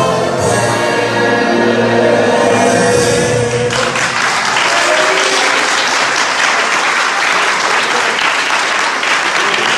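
A choir singing with instrumental accompaniment holds the closing notes of a song; about four seconds in the singing stops abruptly and the room breaks into steady applause.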